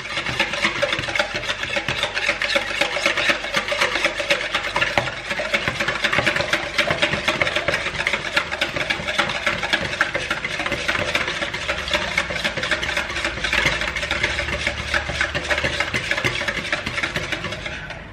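Wire whisk beating raw eggs by hand in a bowl: a fast, steady, continuous run of light clicks and taps as the whisk strikes the bowl and churns the eggs.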